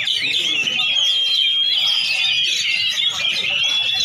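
Dense chorus of caged lovebirds and oriental magpie-robins singing at once: overlapping high chirps, trills and whistles with no break, and one long held note a little after the first second.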